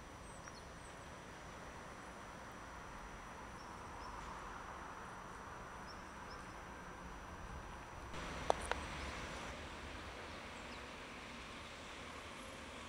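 Outdoor city ambience: a steady low hum of distant traffic with faint bird chirps, and two sharp clicks close together about eight and a half seconds in.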